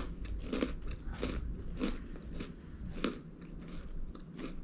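Someone chewing crunchy honey graham crackers (Kodiak Bear Bites), with regular crunches a little under two a second.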